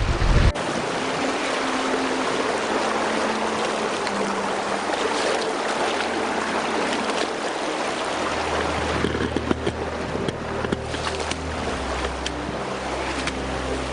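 Swiftly flowing river rushing and splashing around a person wading through it knee-deep. Soft background music with sustained notes runs underneath, its low notes growing stronger about eight seconds in.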